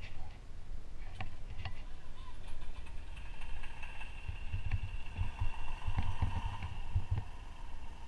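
Garden-railway model diesel locomotive running on its track: a few clicks early on, then a steady whine that comes in about three seconds in and holds over a low rumble.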